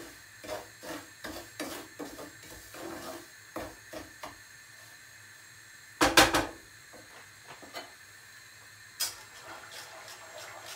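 Wooden spoon scraping through semolina roasting in butter in a pot, about two strokes a second for the first few seconds, then stopping. A short loud clatter of knocks comes about six seconds in, and a single click near the end.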